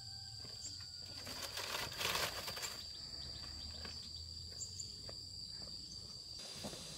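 Insects chirring steadily in a high, even drone. Between about one and three seconds in, a brief scraping rustle, the loudest sound, as the woven bamboo door of the hut is pulled shut.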